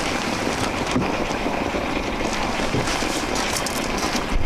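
A 1400-watt electric steamer boiling hard, with steam rushing out of its open brass outlet as a steady, even hiss.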